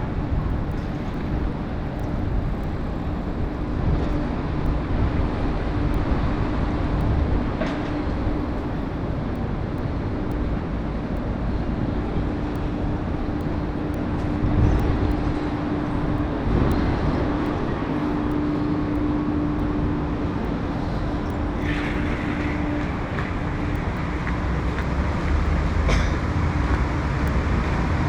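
Street traffic noise with a steady engine hum from a nearby vehicle that fades out near the end.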